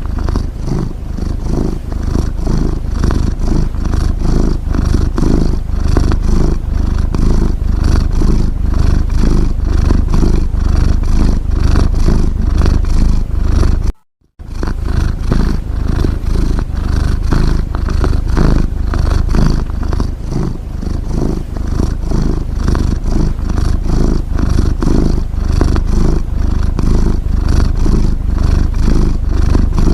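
Domestic cat's close, continuous rumbling purr, pulsing fast and steady; it cuts out for about half a second around the middle.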